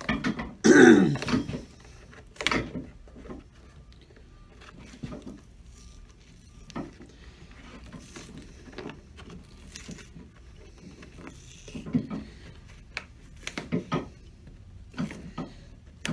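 A man clears his throat loudly about a second in. After that come scattered short creaks, clicks and tearing sounds as the old leather sole of a Crockett & Jones shoe is prised off with pincers, the stitching already scoured away.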